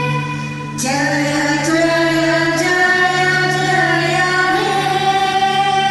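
Group of mostly female voices singing a song together over a steady held accompaniment tone. A held note fades and a new sung phrase comes in about a second in.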